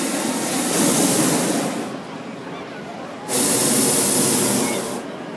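Propane burner of a hot air balloon overhead firing in two long blasts: the first cuts off about two seconds in, the second starts abruptly just over three seconds in and stops near the end.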